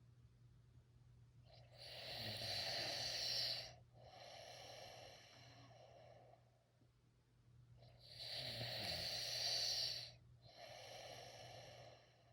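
A person snoring in sleep: two long breaths about six seconds apart, each a louder rasping phase followed by a softer one.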